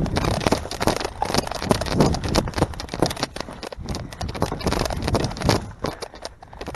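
Quick, heavy footsteps of a person running, several strikes a second, over low rumble and handling noise.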